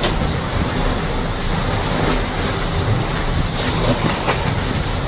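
Tornado winds blowing hard and steadily, with heavy wind buffeting on the microphone.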